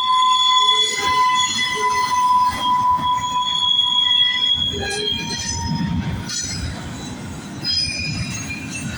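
Steel wheels of a passing double-stack freight train squealing against the rail over a rough rolling rumble. A steady high squeal stops about six seconds in, a brief squeal returns near eight seconds, and the rumble grows quieter toward the end.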